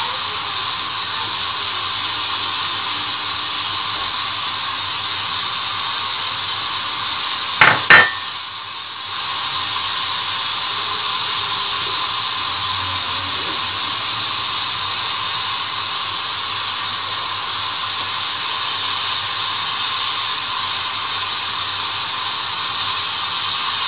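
A steady hiss, with two sharp clicks about eight seconds in.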